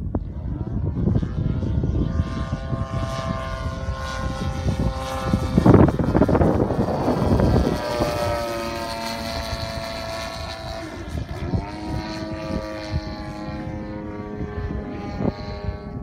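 Desert Aircraft DA-60 single-cylinder two-stroke gasoline engine of a large radio-control aerobatic plane swinging a 24x8 propeller overhead, its pitch sliding down about halfway through and shifting up and down again later. A loud rush of wind noise on the microphone lasts a couple of seconds just before the pitch drops.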